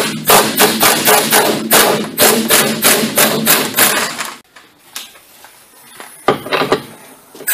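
Pneumatic impact wrench hammering on a 14 mm lower strut bolt, loosening it: one long burst of about four seconds, a pause, then a brief second burst near the end as the bolt backs out.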